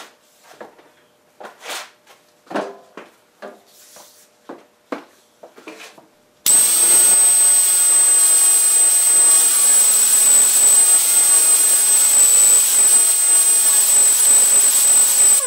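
An air-powered grinder with a coarse abrasive disc starts suddenly about six and a half seconds in and runs with a steady high whine, grinding down the cast-iron top of the cylinder block of a 1930 Briggs & Stratton FH engine to expose a broken bolt. Before it starts there are a few light knocks and clicks.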